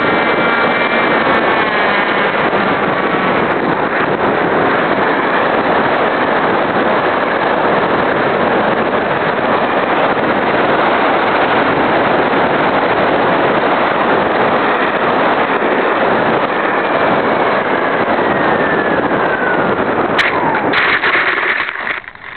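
Steady rush of air over the microphone of a keychain camera on a SkySurfer RC plane in flight, while the plane's electric motor whine falls in pitch and fades out in the first few seconds. Near the end come a few sharp knocks and rustles as the plane comes down into dry brush, and then the noise drops away suddenly.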